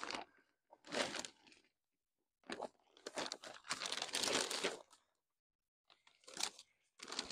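Plastic compost bag rustling and crinkling as compost is scooped out of it by hand. It comes in four separate bursts, the longest in the middle.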